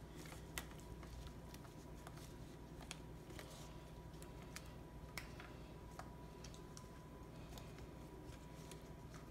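Faint, scattered soft clicks and taps as a gloved hand lays sliced tomatoes into a glass baking dish, over a low steady hum with a faint thin whine.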